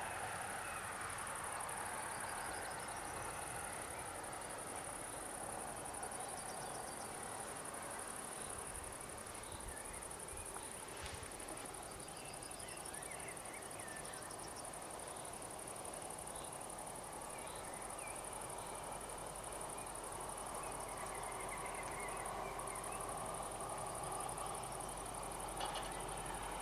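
Crickets trilling steadily at a high pitch, with a few short runs of bird chirps; a low rushing background swells again near the end.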